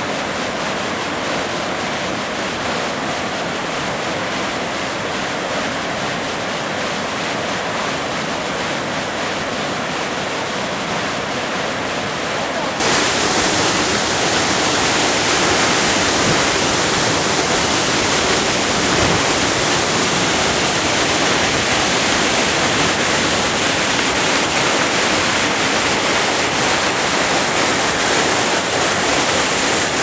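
Steady rush of water pouring down a waterfall. About 13 seconds in, it cuts to a louder, brighter rush of water spilling over a nearby cascade.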